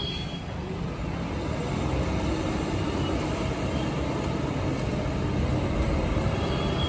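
JCB backhoe loader's diesel engine running steadily as the machine drives across the mud.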